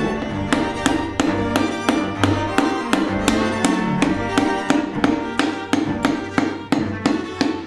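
Background music: bowed and plucked string instruments, including violin, with a steady rhythmic pulse of plucked notes.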